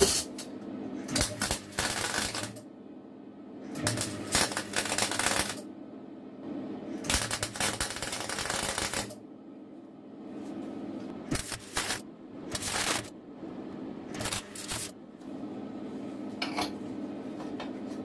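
MIG welder laying short runs of weld on steel cutlery, crackling in bursts of one to two seconds, with shorter tack bursts later on, over a steady low hum between them.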